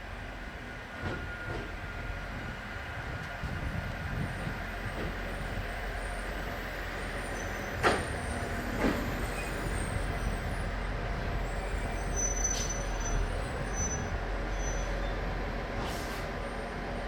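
Train rolling slowly into a station platform: a steady low rumble that slowly grows louder, with two sharp wheel clacks over a rail joint about a second apart near the middle. Short high brake squeals come near the end.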